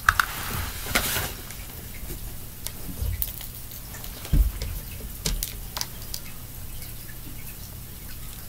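Rustling and scattered small plastic clicks from hands searching the floor and picking up loose Perler beads, busiest in the first second or so, with a soft thump about four seconds in.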